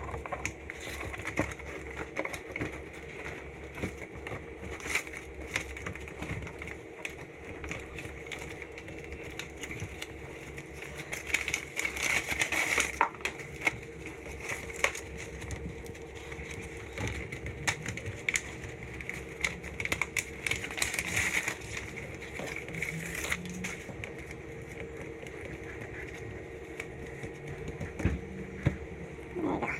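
Crinkling and rustling handling noise with scattered clicks, loudest about twelve seconds in and again around twenty-one seconds, over a steady low hum: heat guard being wrapped around an ATV's snorkel pipes.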